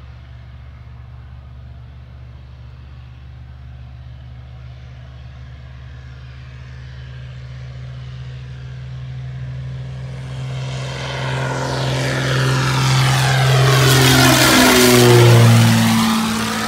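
Maule M-7-235C's Lycoming six-cylinder engine and propeller at full take-off power as the plane rolls down a grass strip and climbs out. A steady drone grows louder through the second half, peaks as the plane passes overhead near the end, and drops in pitch as it goes by.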